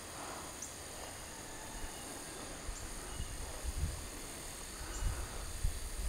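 Insects trilling steadily, with a faint high tick about every two seconds. Wind gusts rumble on the microphone a few times, near the middle and later on.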